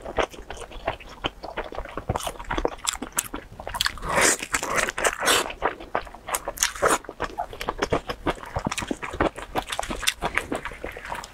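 Close-miked chewing of a sticky-rice meat zongzi, a run of irregular wet mouth clicks and squelches.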